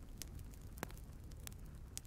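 Wood fire burning in a stove: a few sharp, separate crackles and pops over a low, steady rumble of the flames.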